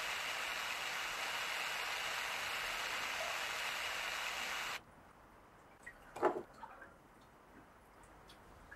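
Steady rushing hiss that cuts off abruptly about five seconds in. After it comes a quiet stretch with one short, faint sound about a second later.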